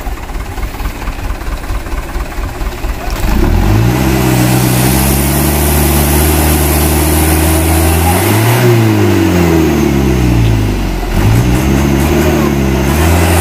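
Mitsubishi light diesel truck engine running roughly. About three seconds in it is revved hard: the note climbs slowly, drops sharply, then climbs again twice as the loaded truck pulls away on a steep climb.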